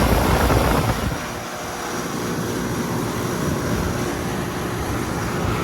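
Central air conditioner outdoor condenser unit running: a steady whir from the fan and compressor. A louder low rumble comes in the first second.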